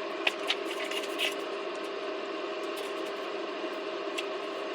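A few light clicks and rustles of a movie box set's packaging being handled, over a steady background hum.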